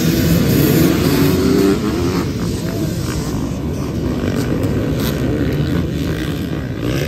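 A pack of dirt bikes accelerating hard off the start line together, many engines running at full throttle at once. Loudest for the first couple of seconds, then easing slightly as the pack pulls away.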